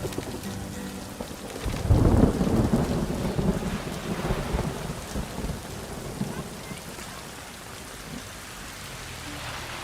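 Steady rain with a roll of thunder that breaks about two seconds in and rumbles away over the next several seconds.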